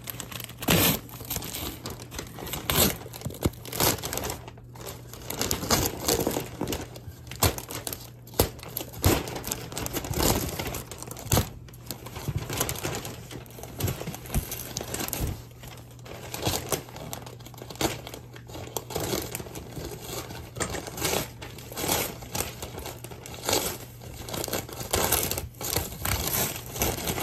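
Brown wrapping paper being torn and crumpled off a taped cardboard box, in irregular rustles and sharp rips.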